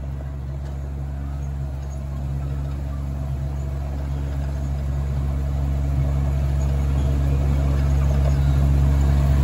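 Miniature park train running along its track: a steady low drone from the locomotive, slowly growing louder.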